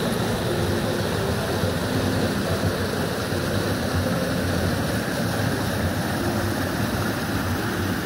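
River water rushing over rocks in shallow rapids: a steady, even rush of white water.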